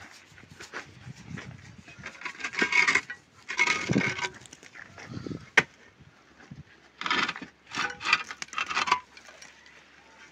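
Large ceramic tiles scraping and rubbing against a cinder-block wall and each other as they are handled, in several short bouts, with one sharp knock about halfway through.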